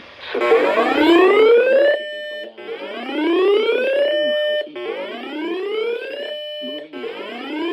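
Electronic whoop alarm tone: four rising sweeps about two seconds apart, each climbing in pitch, holding briefly at the top and cutting off. It sounds over a faint warning voice.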